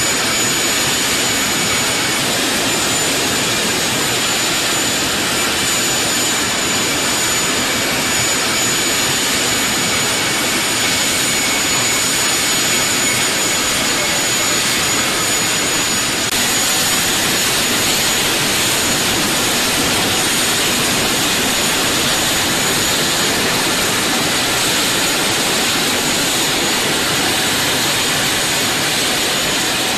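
T929 ATAK 2 attack helicopter prototype's turboshaft engines running steadily during a ground engine run, a constant high turbine whine over a loud rushing noise.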